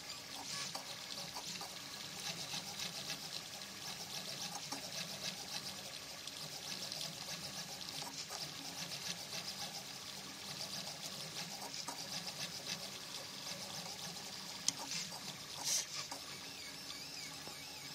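3D printer running a print: its stepper motors whir and chatter in rapid, ever-changing runs of fine ticks as the print head moves over the gear, with a steady low hum underneath. A sharp click comes near the end, followed by a brief louder burst.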